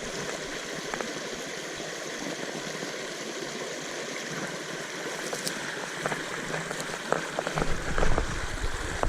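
Small stream's water running steadily over its bed, a continuous rushing trickle. Near the end a low rumble joins it.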